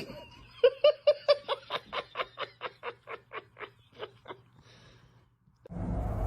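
A person laughing in a rapid, high-pitched run of short 'ha-ha' pulses, about four or five a second, that trails off. A loud steady noise starts near the end.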